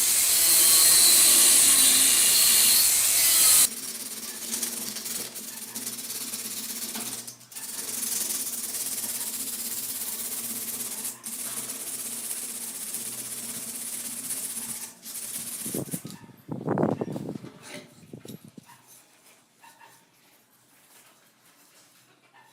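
Power tool working on the axe, loud for the first few seconds, then running lighter and steadier, with a short louder burst about sixteen seconds in before it stops near the end.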